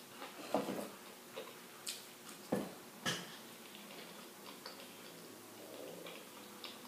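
Eating spaghetti and meatballs close to the microphone: chewing and mouth noises, with a few sharp clicks and knocks in the first half.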